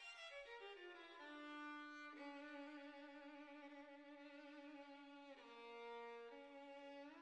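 Quiet background music: a violin playing a falling run of notes, then long held notes.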